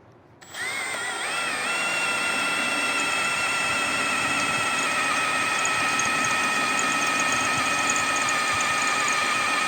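Power drill boring into a spot weld in a Ford Transit's quarter-panel steel. A steady high whine starts about half a second in, wavers as the bit bites, then holds under heavy pressure. The steel is so hard that the drill bit barely chews through, which the owner puts down to the van's very strong steel.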